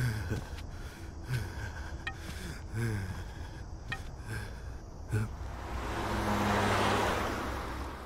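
Slow tapping of a walking cane and shuffling steps on pavement over a low steady street rumble, with a few brief falling groans from an elderly man. Over the last couple of seconds a rising whoosh swells up.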